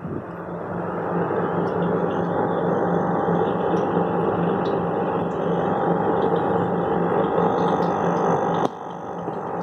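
Small aquarium pump humming steadily, with a regular low pulsing beneath the hum. The level drops suddenly near the end, then builds back up.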